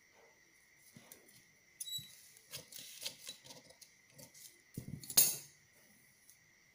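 Large tailor's shears snipping through sheets of pattern paper, with crisp paper crackling and small clicks of the blades. About five seconds in comes a single sharp knock on the table, the loudest sound.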